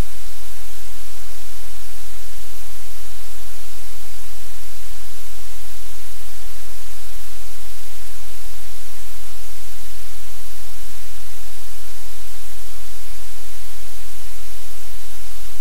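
Loud, steady static hiss over a low hum, with no other sound standing out.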